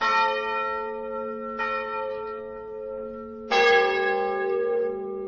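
Church bells tolling: three strikes, the second fainter, each left ringing and slowly dying away. The third, about three and a half seconds in, is the loudest and has a deeper hum.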